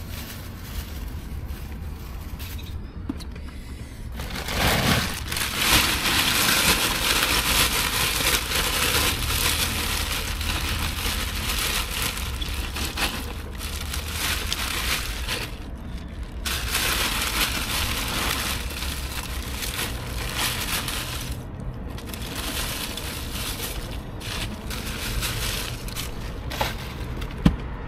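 Bagged ice being emptied into a soft cooler: plastic bags crinkling and ice cubes crunching and clattering, starting about four seconds in and running on.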